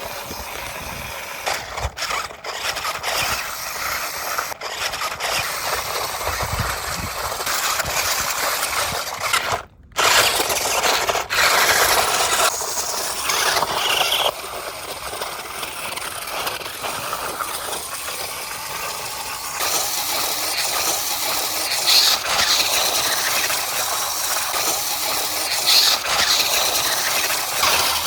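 A large RC car running, its motor and tyres making a steady, noisy sound. It breaks off briefly about ten seconds in.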